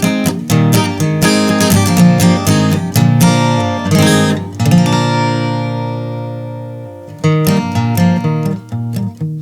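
Instrumental music with a strummed acoustic guitar and a steady beat. About halfway through, one chord rings out and fades for a couple of seconds before the strumming picks up again.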